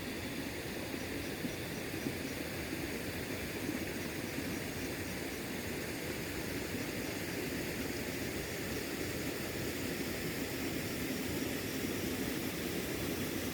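Steady rushing and gurgling of a flowing river, with faint, evenly repeated cricket chirps during the first half.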